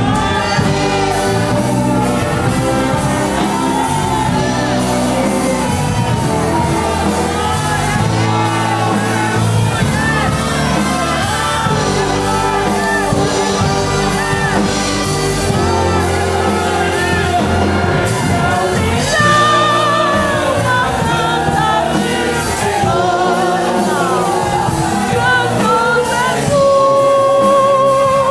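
A church orchestra playing a hymn while voices sing along. It goes on without a break, and wavering held notes stand out in the second half.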